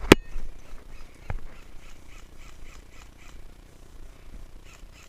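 Airsoft gun shots: one loud, sharp crack right at the start and a weaker one about a second later. After them come runs of faint, quick, high-pitched calls, about four a second.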